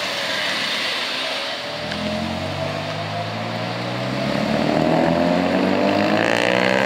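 A car engine accelerates. It comes in about two seconds in, and its note rises steadily in pitch as it gets louder.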